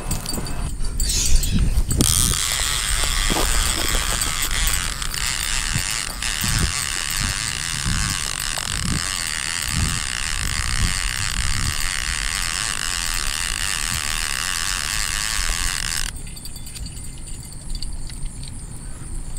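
Fishing reel ratcheting in a continuous buzz that cuts off suddenly a few seconds before the end, with low knocks of the rod being handled.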